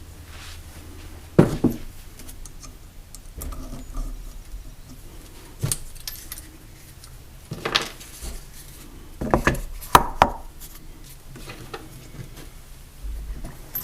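Scattered metallic clinks and knocks of tools and parts being handled, about half a dozen sharp ones with the loudest about ten seconds in, over a faint low hum.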